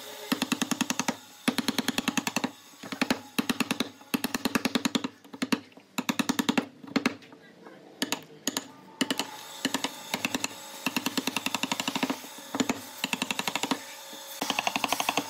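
Wooden mallet striking a chisel to chop out a joint in a wooden board: fast runs of sharp wooden knocks, many a second, broken by short pauses.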